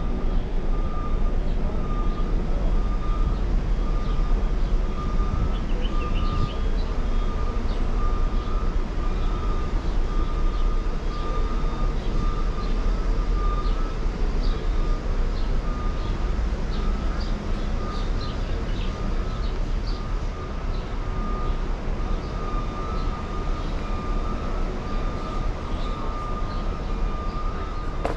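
Steady traffic noise with a heavy low rumble, a faint wavering whine and scattered short high chirps over it.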